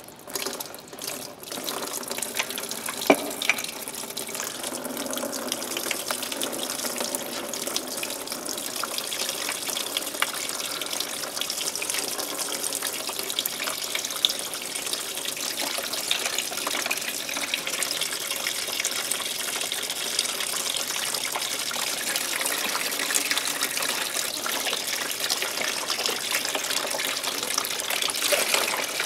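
Engine coolant, thin as water, pouring in a steady stream from a disconnected lower coolant hose under a Mercedes CLA 220 CDI and splashing below, with a couple of light knocks.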